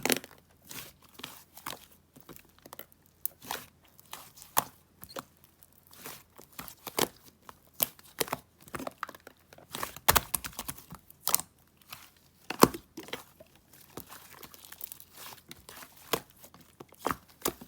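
Irregular crinkling and crackling with sharp clicks, like material being handled or torn close up; several louder snaps come about ten and twelve and a half seconds in.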